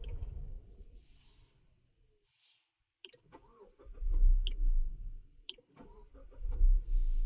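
A few sharp clicks about a second apart from a car's push-button start/stop switch being pressed repeatedly to cycle the ignition, with low rumbling between the presses.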